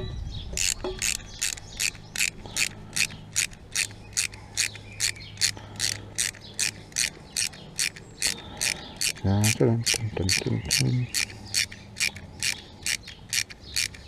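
Ratchet wrench clicking steadily, about three clicks a second, as it is worked back and forth to undo the pad retaining pin on a motorcycle's front brake caliper.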